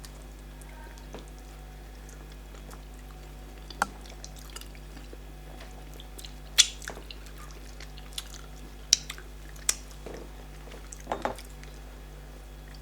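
Mukbang eating sounds of starch fufu and bitter leaf soup: scattered short, wet smacks and squelches, about six sharp ones, over a steady low hum.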